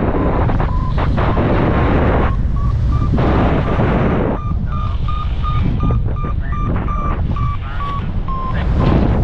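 Airflow buffeting the microphone in gusts, loudest in the first half and again near the end. Underneath, a paragliding variometer beeps in short even tones about three times a second, the beeping that signals the glider is climbing in lift.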